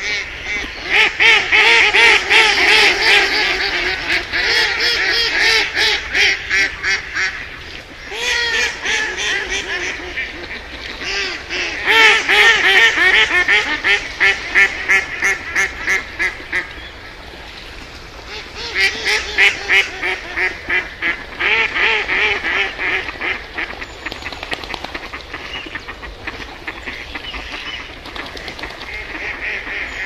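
A flock of ducks quacking in long runs of rapid calls, broken by short pauses, growing fainter over the last few seconds.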